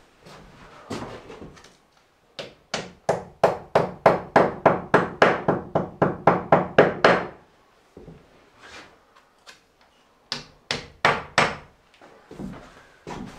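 Hammer blows driving a fixing into the wall to mount a hanger: a quick run of about fifteen sharp strikes, about three a second, then a pause and a few more strikes.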